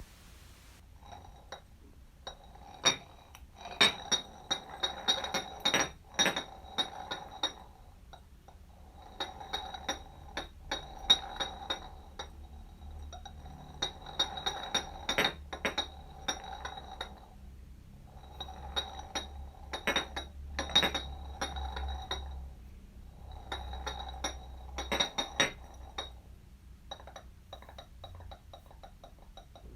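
A jar rolling across a floor in about five separate passes. Each pass is a rumbling roll with repeated clinks and a ringing tone. Fainter, scattered clicks follow near the end.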